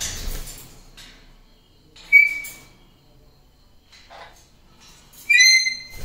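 Pet parrots: a brief flutter of wingbeats at the start, then two loud whistled calls, one about two seconds in and another near the end, with a short falling chirp between them.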